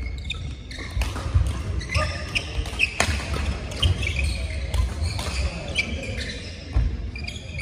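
Badminton doubles rally: several sharp racket-on-shuttlecock hits, shoes squeaking briefly on the court mat, and thudding footfalls of the players moving about the court.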